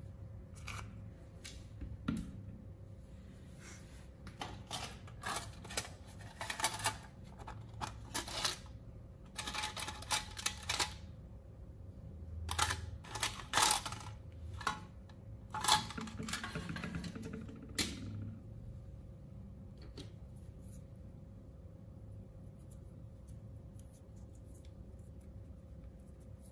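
Handling noise: clusters of sharp clicks and short rattles as small metal tools clatter in a metal tin and one is picked out. The clatter stops about 18 seconds in.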